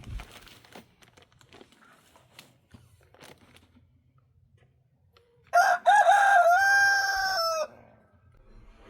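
A rooster crows once, a loud call of about two seconds starting a little past halfway, its pitch stepping up and then holding level before it cuts off. Faint scattered knocks and scrapes come before it.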